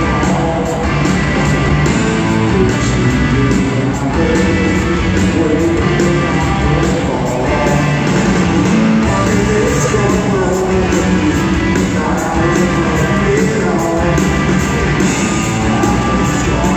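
Live rock band heard from the audience in an arena: distorted electric guitars, bass and drums playing continuously, with a singing voice over them.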